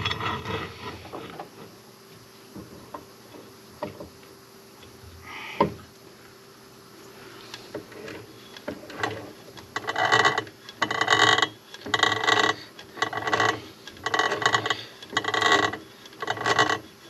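Hand-turned drill with its bit cutting into metal. Scattered clicks and knocks at first, then from about ten seconds in a steady rhythm of scraping, ringing cutting strokes, about one a second.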